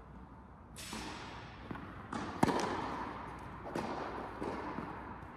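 Tennis balls being struck by rackets and bouncing on the court in a rally: several sharp pops about a second apart, the loudest about halfway through, each echoing in a large indoor hall.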